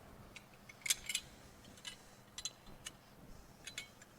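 Faint, scattered clicks and taps of a folding wheel chock being handled and slid under a tyre.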